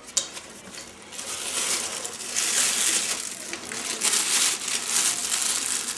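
Rustling and crinkling of a backpack being rummaged through by hand, with a sharp click right at the start and the rustle growing louder after about two seconds.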